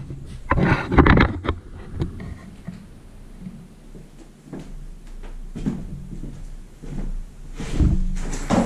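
Handling thumps as a camera is set down, about a second in, then scattered knocks and clacks of plastic tackle boxes being handled on a floor, louder near the end.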